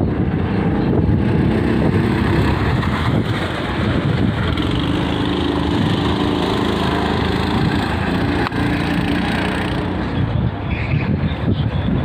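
Rental go-kart's small engine running steadily as the kart laps the track, its drone clearest in the middle, with wind rumble on the microphone.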